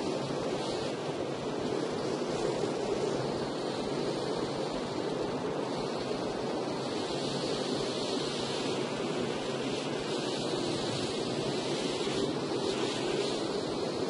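Wind and rain heard from a car driving through a rainstorm: a steady rush with a hiss on top that swells gently now and then.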